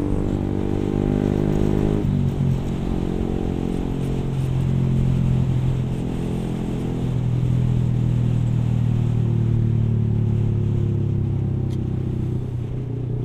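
Yamaha R15 V3's single-cylinder engine running under way through an aftermarket exhaust. The engine note drops quickly about two seconds in, then holds steady at a lower pitch with small rises and falls.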